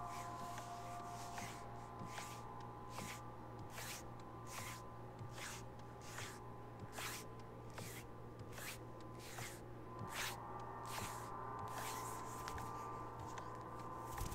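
Layered ambient electronic music: sustained synth tones and a low hum, with a slow rising glide, under a steady run of soft hissing swishes, about two a second.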